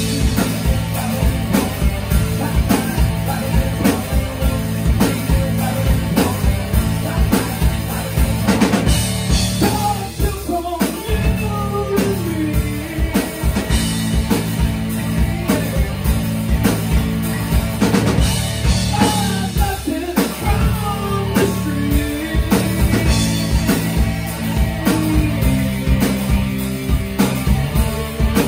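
Live rock band playing: a drum kit keeps a steady beat under bass and guitar while a male lead singer sings. The bass and drums drop out briefly twice, about ten and about twenty seconds in.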